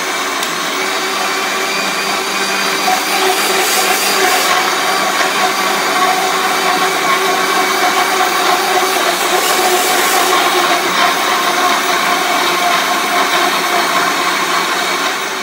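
Prestige Iris 750-watt mixer grinder running with its juicer jar, churning fruit into juice: a steady motor whine that cuts off right at the end.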